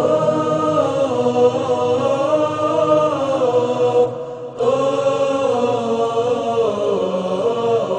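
Arabic nasheed: voices singing long, drawn-out held notes that glide slowly, with a short breath-like break about four seconds in.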